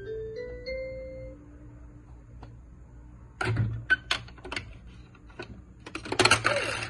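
Electronic toy dinosaur's jingle ending in a quick rising run of beeping notes, then sharp plastic clicks and clacks as a plastic food disc is pushed into its mouth, with a louder clatter near the end.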